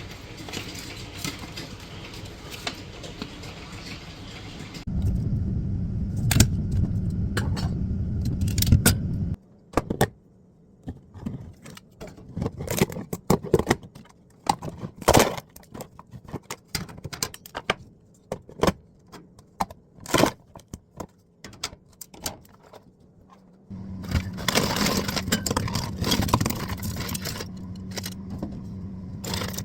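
Scattered sharp clinks and knocks of hard objects being handled, between stretches of steady running noise with a low hum.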